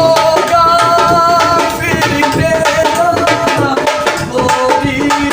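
Instrumental break in a Hindi devotional folk song: dholak drumming under a held, gliding melody line.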